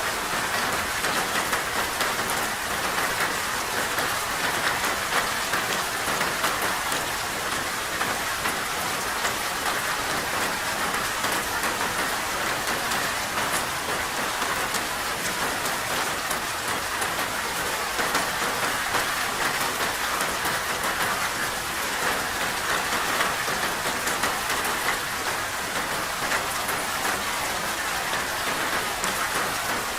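Steady rain falling, a dense even patter of drops that neither builds nor eases.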